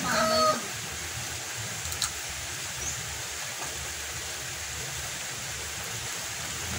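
A rooster's crow trails off in the first half-second. Then a steady outdoor hiss, with a faint click about two seconds in and a short high bird chirp just after.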